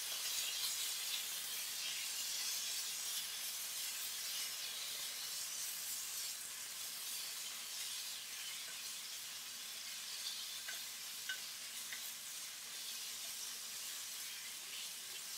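Raw chicken breast cubes sizzling in hot oil and ginger-garlic paste in a nonstick pan, stirred with a wooden spatula. A steady frying hiss, with a few faint pops in the second half.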